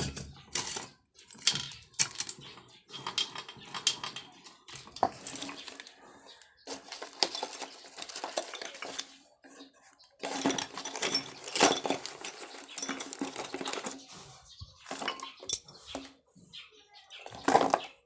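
Irregular metallic clinks and taps of hand tools and small engine parts being handled during a motorcycle engine overhaul.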